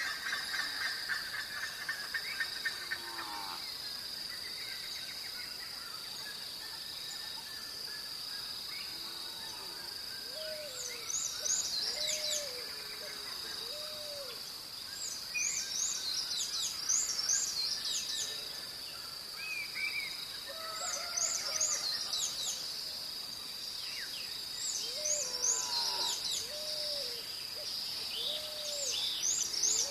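Birds calling at dawn: clusters of quick high chirps repeated every few seconds, and short low hooting notes in groups of three or four, over a steady high-pitched hum.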